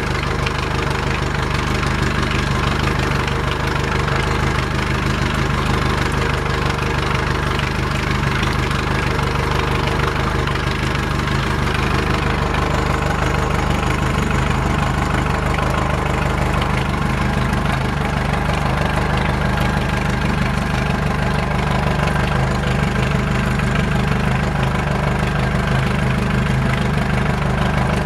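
Yamaha 115 outboard motor idling steadily.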